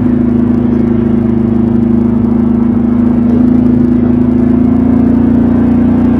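Can-Am Outlander 570 XT ATV's Rotax V-twin engine running under way at a steady speed, loud and close, with a slight rise in pitch about three seconds in.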